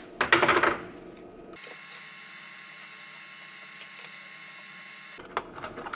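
A brief rustle of gloved hands handling wires and the plastic lantern case, then a faint steady high hum, with a few light clicks near the end.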